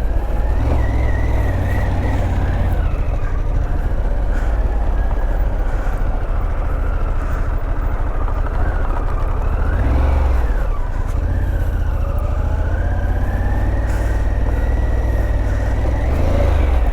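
Harley-Davidson Pan America's 1250 cc V-twin engine running under a varying throttle off road, its pitch rising and falling over a heavy low rumble.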